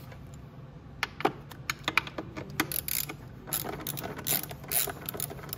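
Socket ratchet clicking in irregular quick runs as it turns the top rear-shock mounting bolt, with metal tool clinks, starting about a second in.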